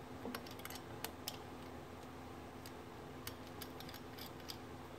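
Small, sharp metallic clicks and ticks from fingers turning the knurled anti-rotation thumb screw on a RHINO nut grinder's front grinding head. The clicks come in a cluster during the first second or so, pause, and then come again in a looser run near the end.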